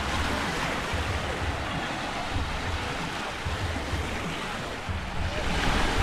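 Small waves washing onto a sandy beach, with wind buffeting the microphone in low rumbles; the surf grows louder near the end.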